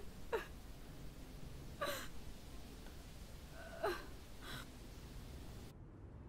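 A woman crying quietly: four short, catching sobs that fall in pitch, spaced a second or two apart.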